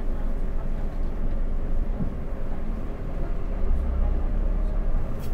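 Scania K360 bus's diesel engine heard from inside the cab as the bus rolls slowly: a steady deep rumble that swells briefly about four seconds in. A short click near the end.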